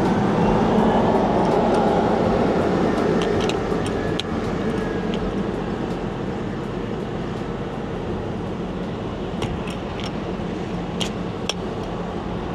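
Steady rumble of a running truck engine, a little louder in the first few seconds, with a few faint clicks near the end.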